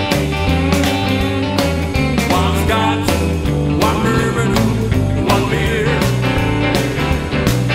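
Rockabilly band playing an instrumental stretch of the song: electric guitar over bass and a steady drum beat.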